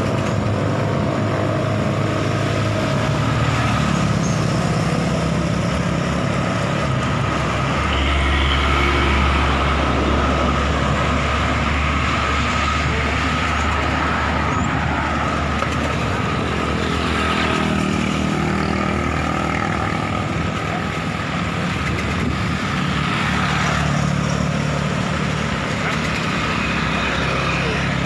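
Road traffic on a busy truck route: engines of lorries and other motor vehicles running and passing, with a heavy low engine rumble loudest from about eight to thirteen seconds in.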